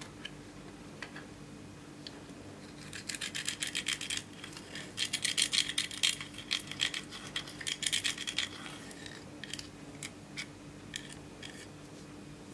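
Pressed eyeshadow being scraped out of its metal pan with a pointed tool: fast scratchy rasping in two runs, the longer and louder one in the middle, then a few single scrapes near the end. A faint low hum runs underneath.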